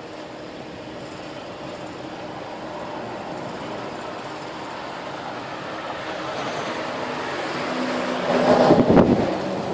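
Sandstorm wind rushing steadily and slowly building, with heavy gusts buffeting the microphone near the end.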